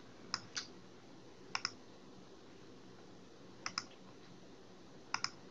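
Computer mouse clicks: two single clicks near the start, then three quick double-clicks spread through the rest, against faint room hiss.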